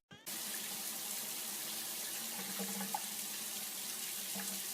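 Steady hiss of running water, even throughout, with a faint low hum underneath.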